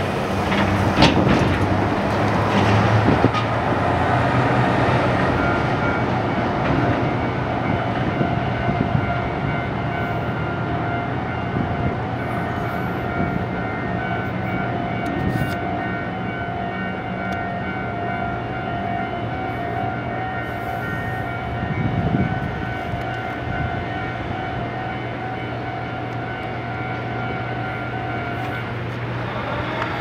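A double-trailer haul truck's engine and tyres as it rolls through the level crossing and away over the first few seconds. A level-crossing warning alarm rings on in a steady repeating pattern and stops just before the end, over a low steady engine hum.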